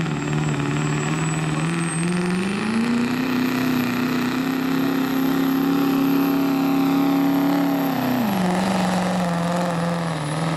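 Chevrolet Silverado's Duramax diesel pulling a weight-transfer sled at full throttle, with a high turbocharger whistle over the engine. The engine note and the whistle climb about two to three seconds in, hold steady, then drop back about eight seconds in.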